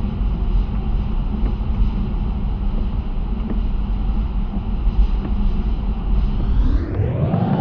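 Steady low rumble of a car driving on a wet road, heard inside the cabin: tyre and engine noise. Near the end the sound shifts with a rising sweep.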